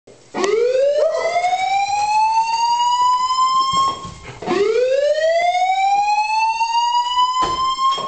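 Building fire alarm sounding a slow-whoop evacuation tone: a loud tone that sweeps steadily upward for about three and a half seconds, breaks off, and starts the same rising sweep again, twice in all. It is the signal to evacuate the building.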